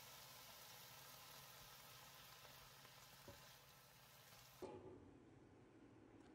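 Faint sizzling of kimchi and green onions frying in a pan, a steady hiss that cuts off suddenly about two-thirds of the way through, followed by a soft knock and quiet room tone.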